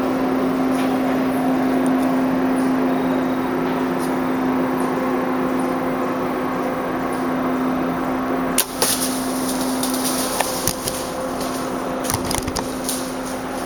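Steady low hum in the background; about two-thirds of the way through, a single sharp snap that fits a Strother Wrath SHO compound bow being shot at the buck, followed by scattered clicks and rustling as the camera is knocked about.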